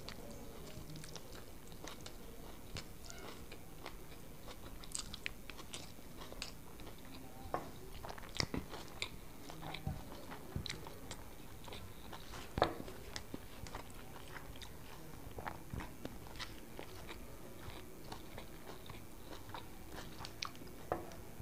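Quiet chewing and mouth sounds of a man eating rice with his fingers, with scattered soft clicks and smacks; the most distinct click comes about twelve and a half seconds in.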